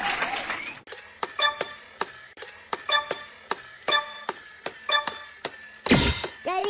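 Ticking-clock sound effect: evenly spaced bright clinking ticks, about two a second, followed by a loud whoosh about six seconds in.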